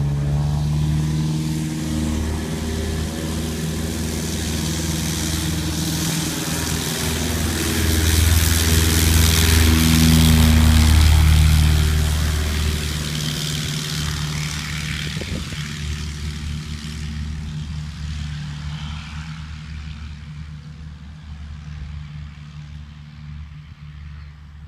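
Piper Cherokee single-engine propeller plane at full power on its takeoff run. The engine and propeller drone swells, is loudest about ten seconds in as the plane passes, and drops in pitch as it goes by. It then fades steadily into the distance.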